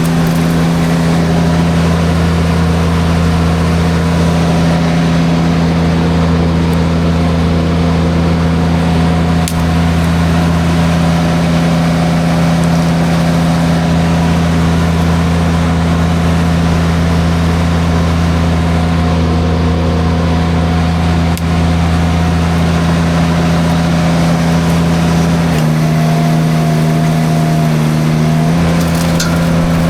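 Derette V1000 mini skid steer engine running steadily at high speed, driving the forestry drum mulcher through brush. Near the end the engine note dips for a few seconds as it loads up, then picks back up.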